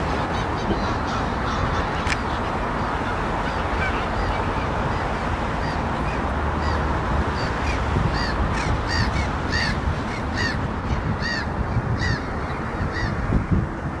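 A flock of gulls calling: short, harsh, arching calls repeated two or three times a second, sparse at first and thickest in the second half. A steady low rumble and hiss runs underneath.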